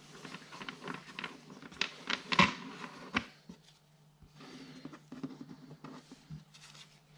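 Pokémon trading cards handled by hand: a run of light clicks and taps as cards are set down on the desk and the stack is squared, with soft sliding rustles in between. The loudest tap comes about two and a half seconds in.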